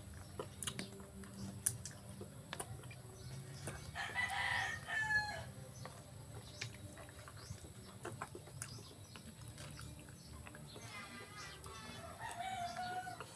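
A rooster crows once, about four seconds in. Under it are small clicks and smacks of chewing from someone eating with their fingers.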